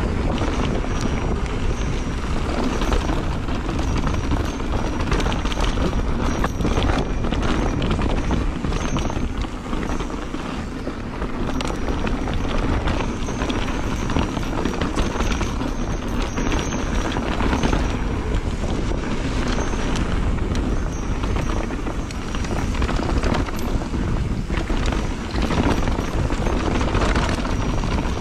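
Mountain bike riding fast down a rough dirt trail: tyres crunching and the bike rattling over bumps, under steady wind noise on the microphone.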